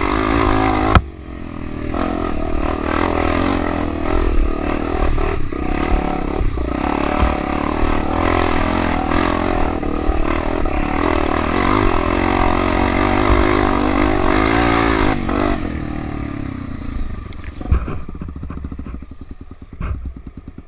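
Trail motorcycle engine running while riding, its revs rising and falling. About three-quarters of the way through it drops to a quieter, lower, even putter.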